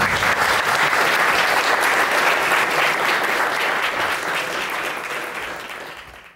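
Audience clapping and applauding, fading out near the end.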